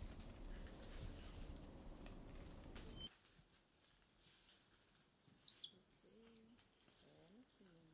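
Golden lion tamarins calling: a quick series of short, high-pitched chirps and whistles that starts about five seconds in and grows louder. Before that there is only a faint outdoor hush.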